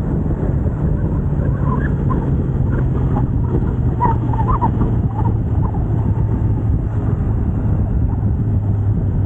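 Kawasaki Z900's inline-four engine running on its stock exhaust while riding, its note easing slowly lower, with a steady rush of wind.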